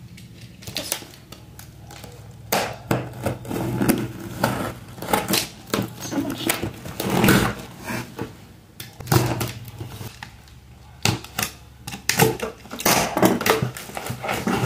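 Cardboard shipping box wrapped in clear packing tape being opened by hand. The tape tears and crinkles, and the cardboard flaps scrape and knock, in irregular bursts.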